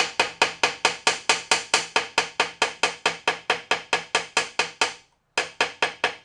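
Rapid, even hammer taps on a metal seal ring, about five a second with a short metallic ring after each and one brief pause about five seconds in: the ring's rolled-over burr edge is being peened flat, which also stretches its outside diameter a little.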